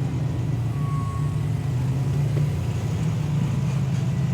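Off-road rock crawler's engine running with a steady low drone as the car crawls the trail.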